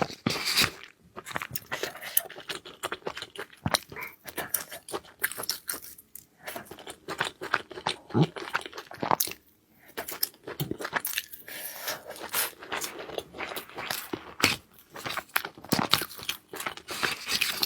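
A person chewing and biting food, as in a mukbang: many quick, irregular clicks and smacks, with a short pause about ten seconds in.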